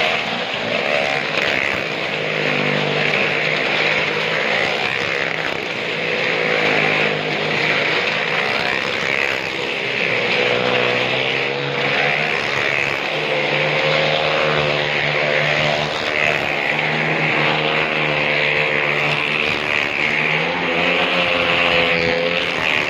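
Motorcycle engines and a small car's engine running hard and steadily as they circle the vertical wooden wall of a well-of-death drum, the engine notes rising and falling.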